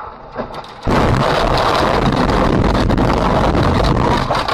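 Loud steady rush of vehicle and wind noise on a dashcam microphone, cutting in abruptly about a second in.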